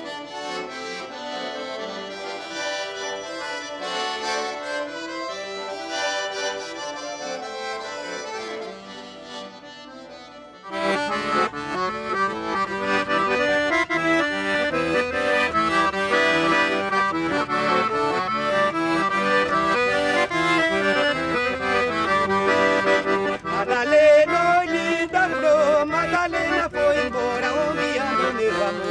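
Accordion music. A softer passage dips away about ten seconds in, then louder, fuller accordion playing with a deeper bass comes in suddenly.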